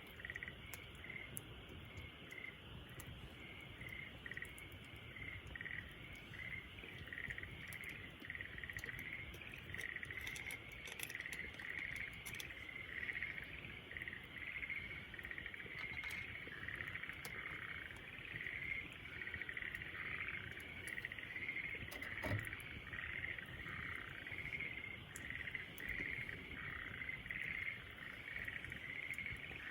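A dense, steady chorus of chirping frogs and insects, with a campfire crackling now and then underneath and one sharp pop about 22 seconds in.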